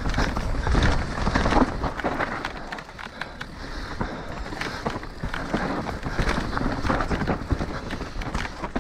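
Orbea Rallon enduro mountain bike descending a rough dirt and rock trail at speed: tyres crunching and skidding over loose ground, with chain and suspension rattling over the bumps. The noise is loudest in the first couple of seconds and eases off briefly about three seconds in.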